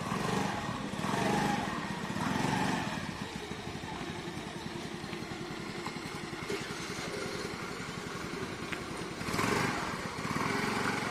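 Small petrol scooter engine idling steadily, with voices around it near the start and near the end.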